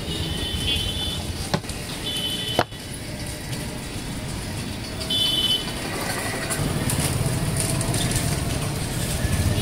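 Street traffic noise with several short, high two-tone beeps. Two sharp knocks come within the first three seconds. A low engine rumble swells up after about six and a half seconds.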